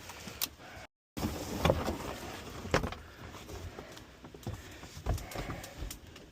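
Scattered clicks and knocks of tools and metal parts being handled, with a few heavier thumps near the end. The sound cuts out completely for a moment about a second in.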